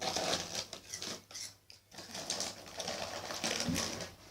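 Rapid rustling, crinkling and clicking of snack packets and wrappers being handled.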